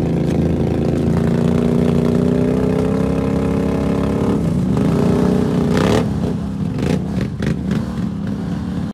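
ATV engine revving hard with its wheels spinning in deep mud as the quad is pushed free. The engine pitch dips and climbs again about five to six seconds in, then turns into uneven churning and clattering as the machine lurches forward.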